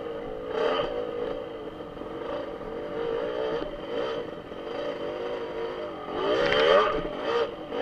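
Dirt bike engine revving up and down with the throttle as the bike rides a bumpy dirt trail, with the hardest rev about six and a half seconds in.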